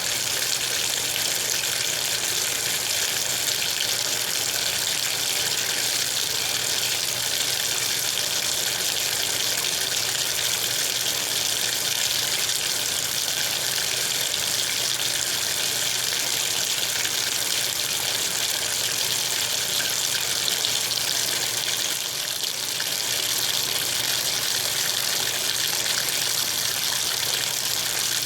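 Steady hiss of water running from a tap fed by a water heater, with the heater's own low hiss. The owner thinks the heater is running at very low pressure.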